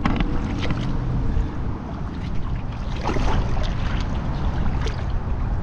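Hooked iguana splashing and thrashing in shallow canal water as it is dragged toward the bank on a fishing line, with scattered short splashes and a steady rumble of wind on the microphone.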